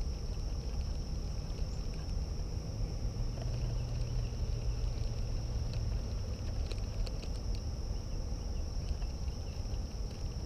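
A steady high-pitched insect trill, a chorus of crickets or katydids, over a low rumble, with a few faint clicks near the middle.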